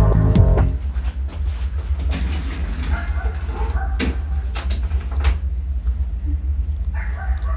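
Music cuts out under a second in, leaving a low steady rumble with a few sharp clicks and knocks, like objects being handled on a desk.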